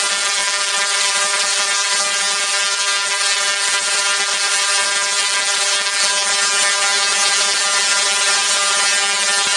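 Small dual-resonant solid-state Tesla coil (DRSSTC) running, its sparks making a loud, steady, buzzing crackle at one fixed pitch.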